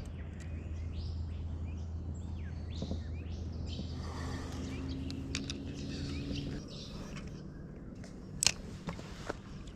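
Wild birds chirping and calling, a busy chorus of short calls, over a low steady hum that fades out about two-thirds of the way through. Near the end come a few sharp clicks or knocks, the loudest of them the loudest sound here.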